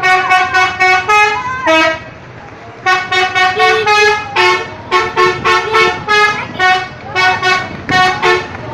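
A bus's multi-tone 'telolet' air horn playing a quick tune of short, loud blasts at changing pitches, with a brief pause about two seconds in.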